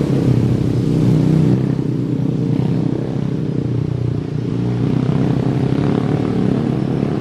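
An engine running steadily with a low, rapidly pulsing drone, a little quieter after about a second and a half.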